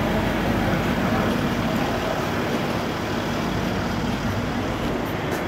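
Steady rumble of road-vehicle noise, easing slightly toward the end.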